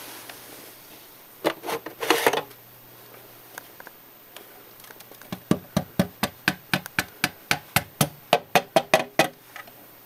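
Handling knocks and rustles on an iRobot Dirt Dog robot vacuum's plastic body, then a quick even run of sharp taps, about four a second, for some four seconds. The robot's motors are not running.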